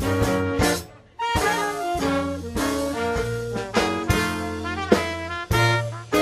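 Brass-led Dixieland jazz band playing a blues: the full ensemble comes in with drum hits, breaks off briefly about a second in, then plays on together.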